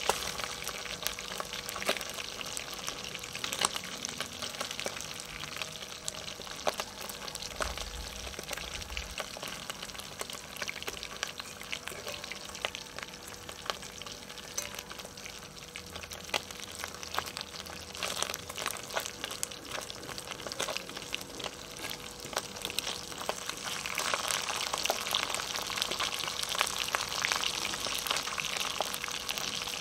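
Sprat fish frying in hot oil in a metal pot, sizzling with dense crackling and popping, with a fork now and then scraping and clinking in the pot as the fish are turned. The sizzle grows louder in the last few seconds.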